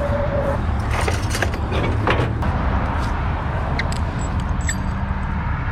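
Steady low rumble of vehicle engines and road traffic, with scattered knocks and clanks, most of them between about one and two and a half seconds in.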